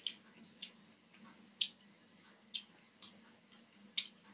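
Close-miked, open-mouthed chewing of a mouthful of rice and curry, with sharp wet lip smacks about twice a second. The loudest smacks come about one and a half seconds in and near the end.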